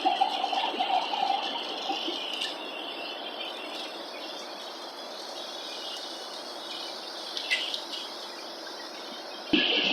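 Steady hiss of airliner cabin noise in flight, which becomes abruptly louder near the end.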